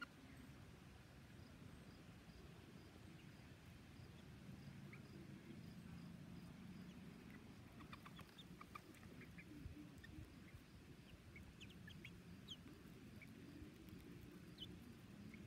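Faint, scattered short peeps from young silkie chickens, over a low steady background.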